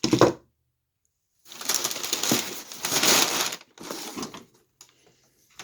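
Packaging being crinkled and crumpled by hand: a short rustle, then about two seconds of dense crackling, and a shorter bout a little later.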